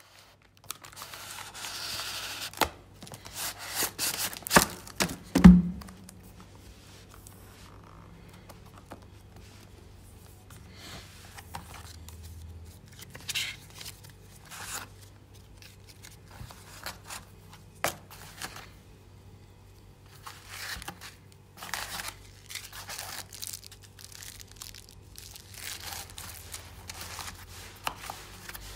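Plastic shrink wrap being torn and crinkled off a cardboard product box, followed by rustling and scraping of packaging as the box is opened and its contents handled. A single sharp knock about five seconds in is the loudest sound.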